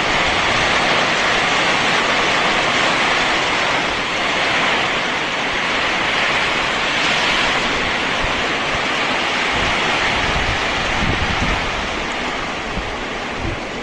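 Heavy rain falling, a steady loud hiss that eases a little toward the end, with a few low thumps near the end.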